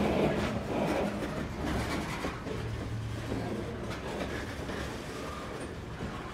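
Freight train's covered hopper cars rolling past close by, a steady rumble of steel wheels on rail with scattered clicks and clacks.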